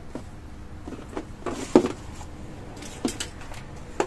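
Hands handling electrical cables, plastic connectors and a power strip on a tabletop: scattered clicks and knocks, the loudest cluster a little before halfway, a few sharp ticks about three seconds in, and another knock at the end.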